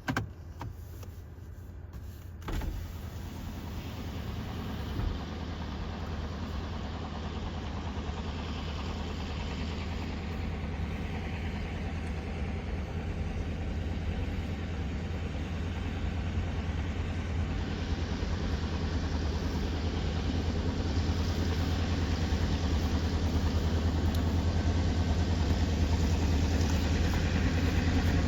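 Diesel locomotive of a freight train approaching, its deep engine rumble growing steadily louder, with a couple of brief knocks near the start.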